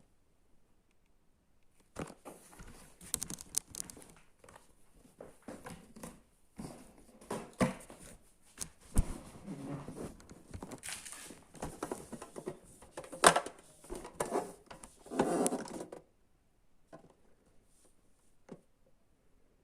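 Packaging being handled and opened: irregular rustling and crinkling with clicks and knocks. The loudest is a sharp knock about two thirds of the way through. The handling stops for the last few seconds.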